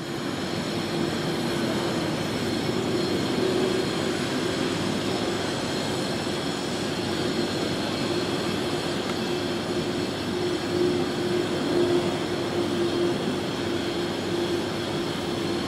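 Jet engines of an Airbus A330-300 on final approach, running steadily: an even rush with a held hum and a high whine over it, swelling slightly past the halfway mark.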